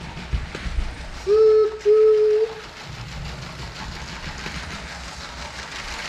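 LEGO remote-control high-speed passenger train running on plastic track, its motor and wheels making a steady low rumble. About a second in come two short, steady horn-like tones, one right after the other.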